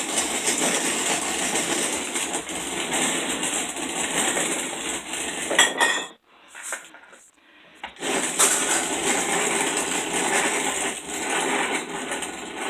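Hand-cranked manual grain mill grinding wheat berries into flour, a continuous gritty metallic grinding. It stops for about two seconds just past the middle, then starts again until near the end.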